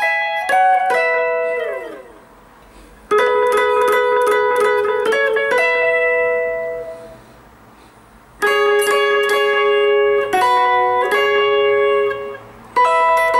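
Electric guitar played alone, picking a Congolese sebene lead line high on the neck: quick phrases of several notes sounding together, separated by short pauses, with notes sliding downward about a second in.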